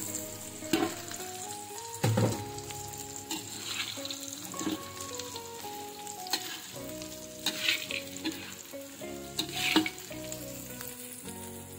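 Fried tofu cubes and dried anchovies sizzling in hot sambal oil in a pan, stirred with a metal spatula that scrapes the pan about five times. A soft melody of background music runs underneath.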